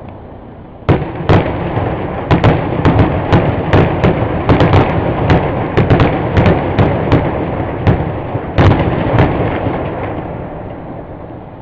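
Fireworks grand finale: after a brief lull, a rapid string of sharp bangs from about a second in, two or three a second over a continuous echoing rumble, stopping about nine seconds in as the rumble fades away.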